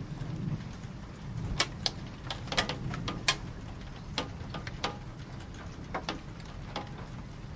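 Rain, with scattered heavy drops ticking sharply and irregularly on a hard surface over a low steady rumble.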